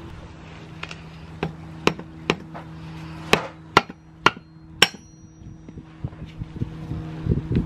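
A hammer tapping a black flange onto a Honda S2000 differential: about eight sharp, uneven taps, roughly half a second apart. Some taps ring briefly, as from metal struck on metal.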